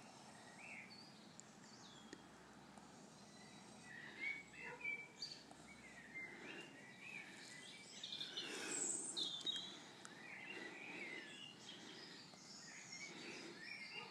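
Birds chirping faintly, a scatter of short chirps and trills that is busiest around the middle, over a low outdoor background hiss.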